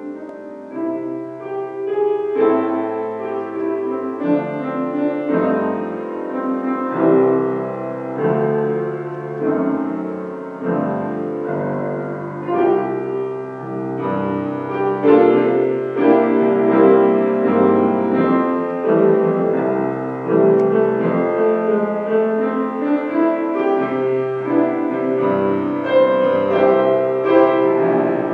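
Piano music: chords over a low bass line that changes every second or two.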